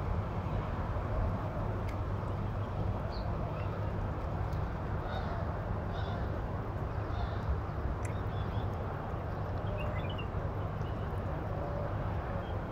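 Steady low outdoor background rumble, with short faint bird chirps scattered through it.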